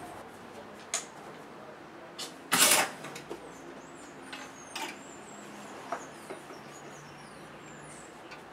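Clothes being taken from a closet: hangers clicking and fabric swishing, with one short, louder rustle about two and a half seconds in. From about three and a half seconds on, many faint, high chirps run through it.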